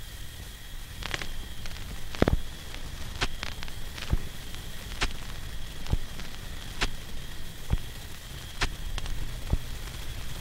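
Crackling ambient sound from a Raspberry Pi noise toy: sharp, irregular crackles and clicks, roughly one a second, over a steady low rumble and a faint steady high tone.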